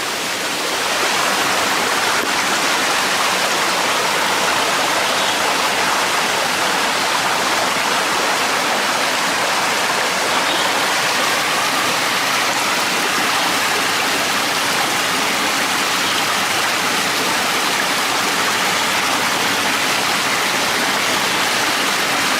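A small stream flowing: a steady rush of running water that gets louder about a second in and then holds even.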